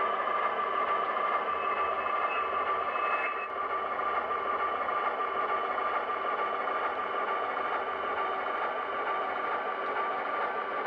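HO scale model diesel switcher locomotive running slowly as it shoves a cut of freight cars: a steady even sound with a high whine running through it.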